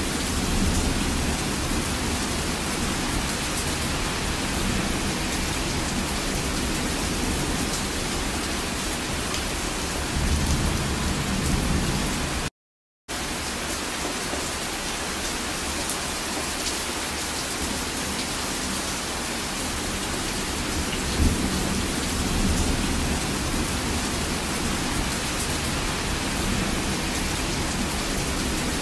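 Heavy rain falling steadily as a thunderstorm hiss, with low rumbles of thunder swelling up three times. The sound cuts out completely for about half a second near the middle.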